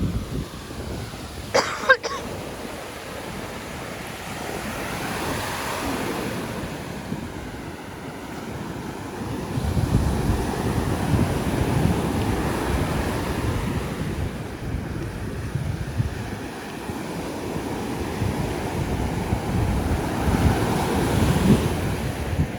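Surf washing onto the beach with wind buffeting the microphone, the wash swelling and easing every several seconds. A short high-pitched cry about two seconds in.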